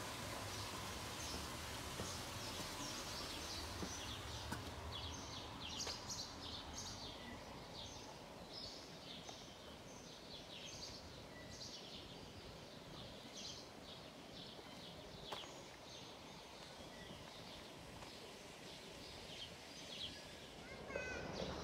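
Small birds chirping: many short, high chirps repeating throughout, faint, over a steady low background noise.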